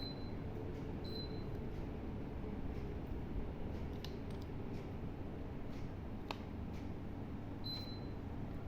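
Daikin 1 PK air conditioner running: a steady low hum and rush of air, with a few faint sharp clicks and three brief high chirps over it.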